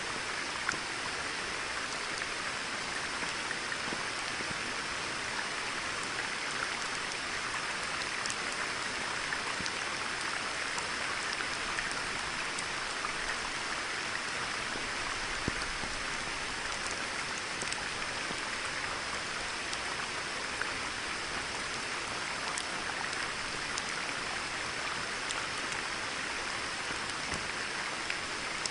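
Steady rain falling on a pond's surface, with scattered single drops ticking out above the even patter.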